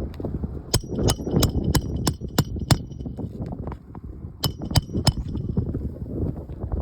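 Hammer driving roofing nails: seven quick ringing strikes about three a second, then after a pause three more, with wind rumbling on the microphone.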